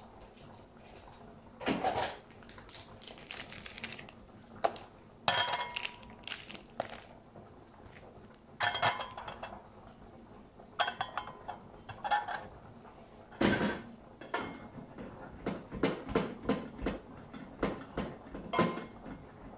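Dishes, pots and utensils clattering as they are handled at a kitchen counter: a string of separate knocks and clinks, some ringing briefly.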